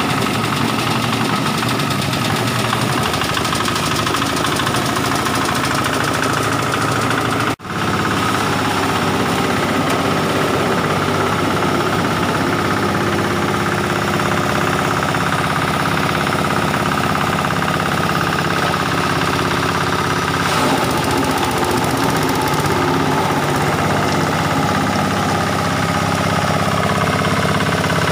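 Small single-cylinder diesel engine running steadily, driving a grass-and-straw chopper. The sound breaks off for an instant about seven and a half seconds in.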